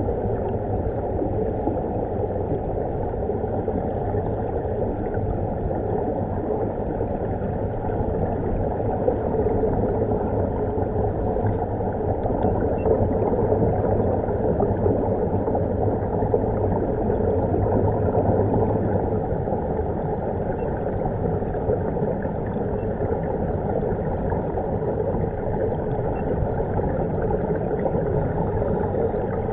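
Steady, muffled underwater rushing and bubbling of air streaming from air-fed diving helmets and scuba regulators.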